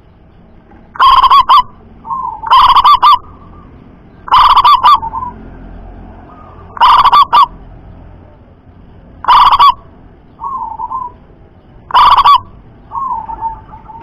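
Zebra dove (perkutut) calling: six loud, short, rippling coos about every two to two and a half seconds, with a second, quieter dove cooing in the gaps between them.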